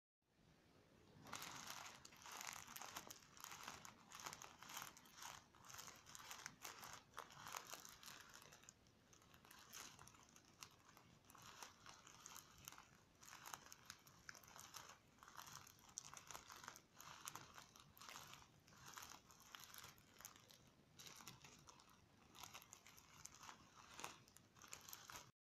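Hands squeezing and kneading a clear plastic star-shaped squishy filled with tiny foam beads: the plastic crinkles and the beads crunch in quick, irregular crackles, starting about a second in.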